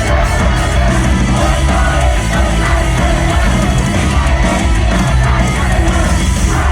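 Loud, steady rock music with heavy distorted guitars and drums, an idol song's band track playing through a live venue's sound system.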